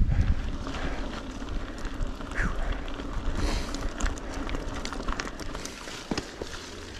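Mountain bike riding over a rough, wet trail: a steady rumble of tyres on stones and water, with many small rattles and clicks from the bike.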